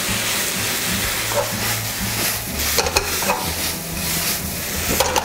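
Spaghetti with chopped garlic scapes sizzling as it is stir-fried in a coated frying pan, with a steady frying hiss. A silicone spatula scrapes and tosses the noodles in a few short strokes.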